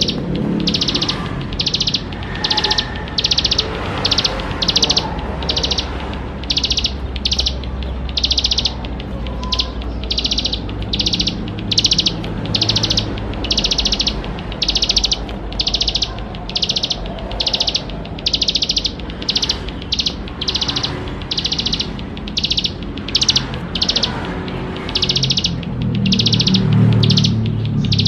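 Plain prinia (ciblek sawah) singing hard: a long unbroken series of short, high repeated notes, about one and a half a second, over a low background rumble.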